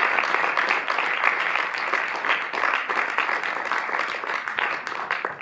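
Audience applauding in a cinema auditorium, a dense patter of many hands clapping that tapers off near the end.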